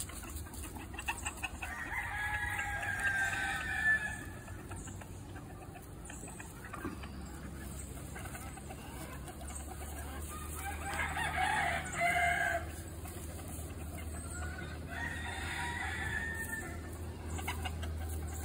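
Chicken flock with roosters crowing three times, each crow about two seconds long, over hens clucking as they forage.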